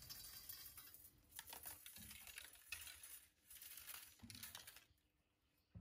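Faint rustling of clothes being handled and hung on hangers, with a few light clicks. The rustling stops near the end.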